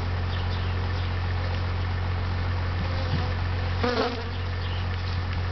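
Honeybees buzzing around an opened top-bar hive, a steady drone, with a brief louder buzz about four seconds in.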